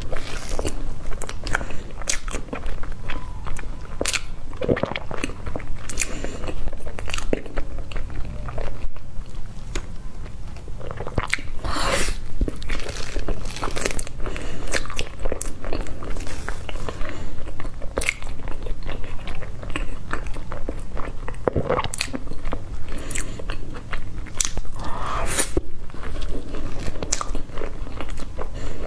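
A person biting and chewing crisp, crumbly food with a mouth full, the crunching coming in irregular crackly bites throughout.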